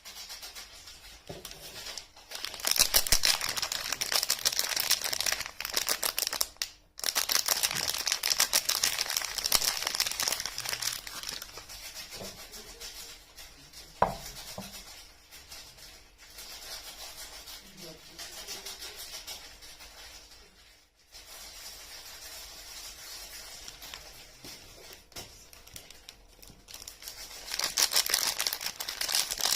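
Soap wrapping crinkling and tearing as bars of soap are unwrapped by hand, in long rustling stretches with quieter handling between. There is one sharp click about halfway through.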